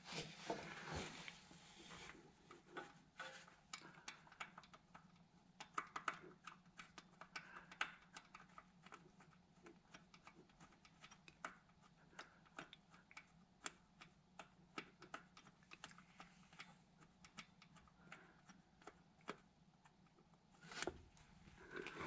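Near silence broken by faint, irregular small clicks and taps as a hand seats the power steering hose fittings and their bolts on the pump, over a faint steady hum.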